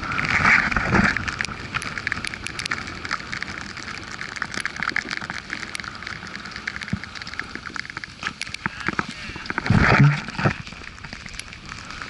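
Snowboard sliding over fresh snow: a steady crackling hiss full of small clicks and scrapes, with a louder rush and scrape about ten seconds in.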